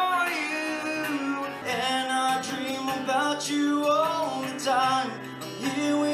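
A man singing a melody into a microphone while strumming an acoustic guitar.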